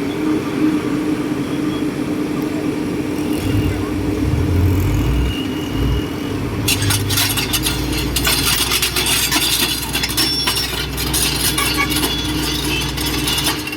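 Diesel engine of a tracked earthmoving machine (bulldozer or excavator) running steadily. A deeper rumble joins about three and a half seconds in, and from about seven seconds in there is dense metallic clanking and rattling, as of tracks or a blade or bucket working on stony ground.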